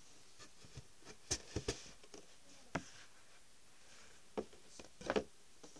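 Handling noise from a handheld phone being moved about: a handful of soft, scattered knocks and rubs over a quiet room.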